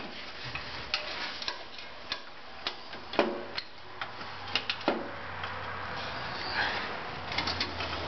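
Irregular light metallic clicks and taps as metal parts are handled and fitted at the bearing on a Wheel Horse snowthrower's shaft.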